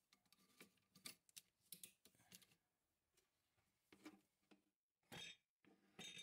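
Faint, scattered clicks and light scrapes of hands fitting metal parts onto a watch-cleaning machine over its glass jars, with a longer scrape about five seconds in.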